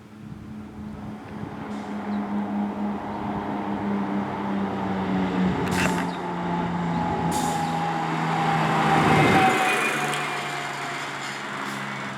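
TLF 16/24 tank fire engine driving past: its engine and road noise build up, are loudest about nine seconds in, then the engine drops in pitch as it goes by.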